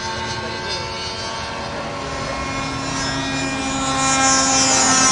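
Small glow-fuel engine of a radio-controlled model floatplane droning steadily in flight, getting louder about three to four seconds in as the plane comes nearer.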